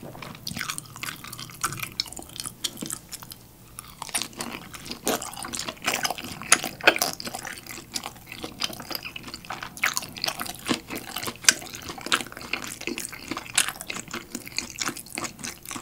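A person chewing a mouthful of dumpling close to the microphone: wet, juicy smacking with many small clicks.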